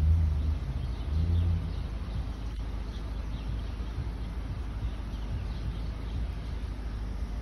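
Steady low rumble of a car idling, heard from inside the stationary car, with two short low hums in the first two seconds.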